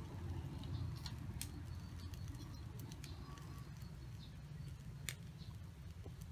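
Metal tongs clicking as grilled chicken wings are lifted off a wire grill rack and set down on a banana-leaf-lined plate: a few sharp clicks, the loudest about a second and a half in and again about five seconds in. Faint bird calls and a low steady rumble underneath.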